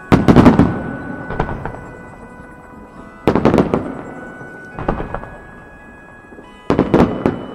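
Aerial firework shells bursting in volleys: three loud groups of sharp bangs about three and a half seconds apart, each trailing off, with smaller pops between them. Music plays steadily underneath.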